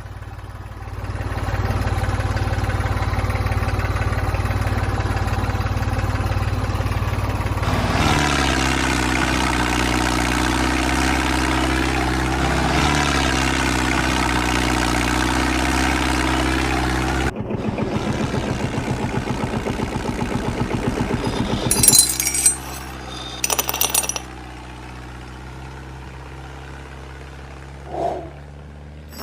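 Small electric motors of a homemade mini tractor model running with a steady hum. The tone changes about eight seconds in, and a fast pulsing follows after about seventeen seconds. A few clinks come a little past twenty seconds, then the motor hum is quieter.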